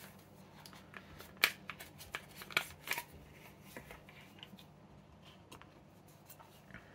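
Light handling sounds of a knife and its black plastic sheath on a cutting mat: a few sharp clicks in the first half, the loudest about a second and a half in, then scattered soft ticks, over a faint steady hum.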